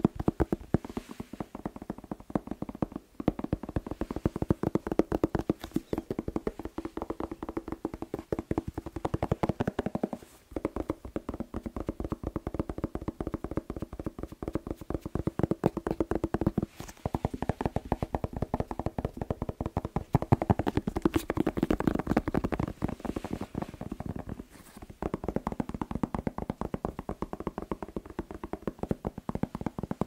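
Fingertips tapping very fast on a whole red bell pepper held close to the microphone: a dense, hollow drumming of taps, broken by short pauses every several seconds.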